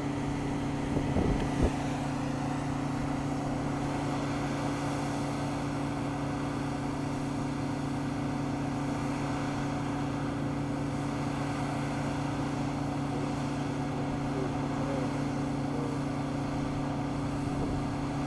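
Harvest machinery's diesel engine running at a steady speed, an even drone that holds one pitch throughout, with a few light knocks about a second in.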